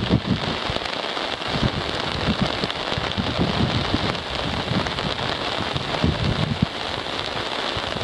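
Steady rain falling on the sea and a sandy beach, an even hiss, with gusts of wind rumbling on the microphone.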